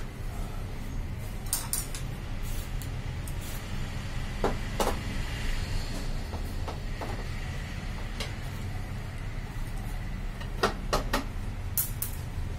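Scattered clicks and knocks of a screwdriver and hands working at the plastic side panels of a Xerox WorkCentre copier, with a pair about four and a half seconds in and a quick cluster near the end, over a steady low hum.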